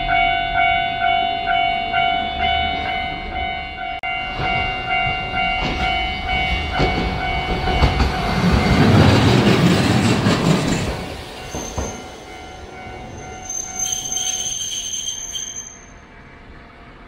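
Japanese level-crossing warning bell ringing in pulses about twice a second while a single-car Hankai Tramway tram, No. 504, runs through the crossing; the passing tram's wheel and running noise is loudest a little past the middle, as the bell stops.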